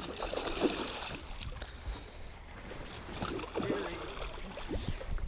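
A hooked muskie thrashing and splashing at the water's surface beside the boat, in two spells: in the first second and again around three to four seconds in.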